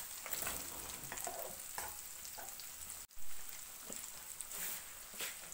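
Breadcrumb-coated chicken wings deep-frying in hot oil in a wok: a steady sizzling hiss with small crackles and pops, briefly broken about three seconds in.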